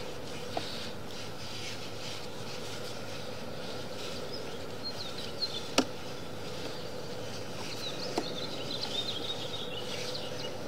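Sewer inspection camera's push cable being fed along a sewer line: a steady hum under rubbing and scraping, with a few sharp clicks and a run of faint high squeaks near the end.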